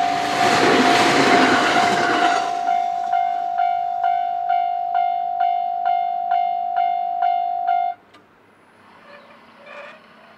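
Aoimori Railway 701-series electric multiple unit running past, its wheels and running gear rushing loudly for the first two seconds, while a railway level-crossing warning bell rings about twice a second and cuts off suddenly about 8 seconds in, once the train has cleared.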